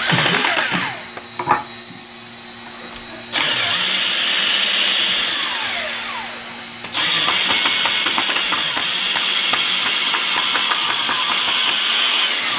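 DeWalt cordless drill boring into a plywood gusset: a short burst at the start, then running steadily from about three and a half seconds in, with a brief drop near seven seconds before it runs on again.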